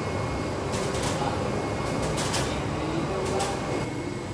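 Large-format UV printer running: a steady mechanical hum with short hisses every second or so.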